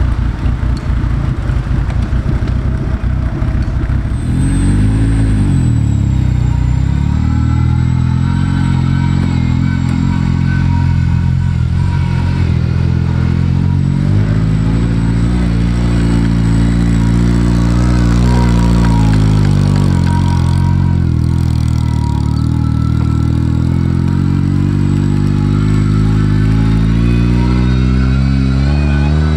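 Sporting trials car engine working hard: a low, lumpy pulsing for the first few seconds, then the revs pick up and swing up and down repeatedly under load.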